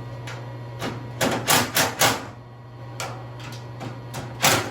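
Metal knocks and rattles in two quick groups, four strikes about a second in and three near the end, as the newly mounted air-to-air intercooler is pushed and shaken on its thin brackets to test how sturdy it is. A steady low hum runs underneath.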